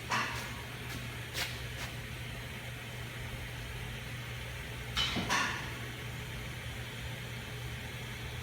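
Steady low machine hum with a few short knocks, and a louder cluster of knocks about five seconds in that ends in a brief falling scrape.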